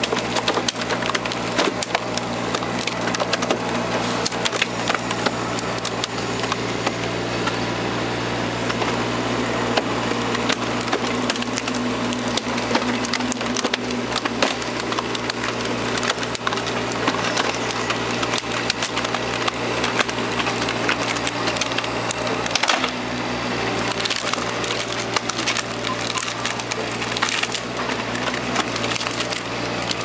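Hydraulic screw cone splitter on a crane arm boring into the end of a long log, the wood cracking and splintering continuously over the steady drone of the machine. A sharper crack comes about two-thirds of the way through.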